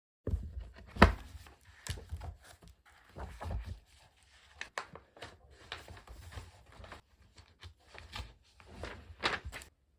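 Irregular knocks, taps and rustling of objects being handled, with the loudest knock about a second in.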